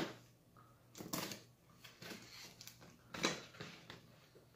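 Long cardboard box being handled and shifted on a glass tabletop: a few scattered knocks and scrapes, the sharpest right at the start and others about one and three seconds in.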